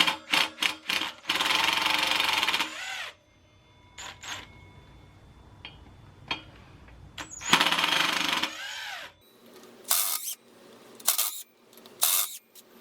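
Impact wrench loosening the bolts on a motorcycle wheel hub, in two bursts of about a second and a half, the second winding down in pitch, with sharp metallic clicks and shorter bursts around them.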